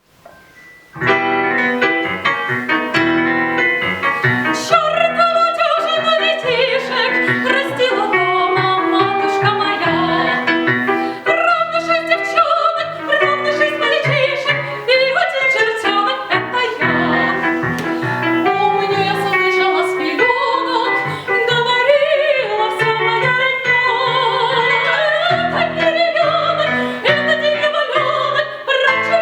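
A woman sings an operetta song in classical style with vibrato, over piano accompaniment. The music begins about a second in.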